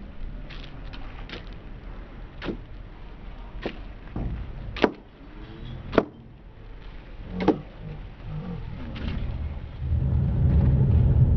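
Sharp knocks of a knife striking a wooden board as fish are scaled and cut, six blows about a second apart. A loud low rumble comes in near the end.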